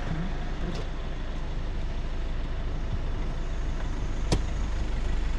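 Vehicle engine running steadily with a low hum, and a single sharp click about four seconds in.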